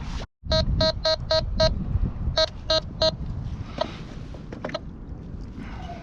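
Metal detector beeping on a buried metal target: a short, high, pure tone repeated in quick succession, five beeps then three more after a short pause, over low wind rumble on the microphone.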